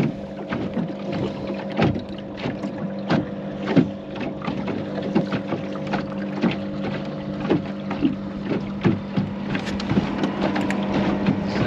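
Water slapping and knocking irregularly against the hull of a Goat Island Skiff sailing dinghy under way, over the steady low drone of a passing oyster boat's engine that fades near the end.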